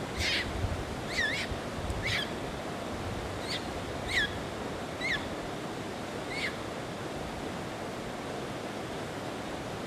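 Steady rush of running water, with about seven short, high chirping calls over the first seven seconds, several dipping and then rising in pitch.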